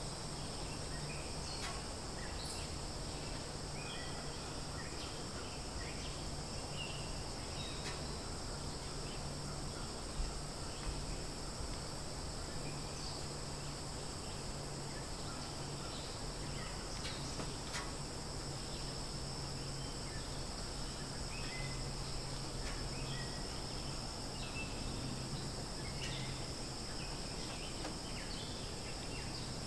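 Forest ambience: a steady high-pitched drone of insects, with scattered short bird chirps and a few sharp clicks, the loudest about ten seconds in.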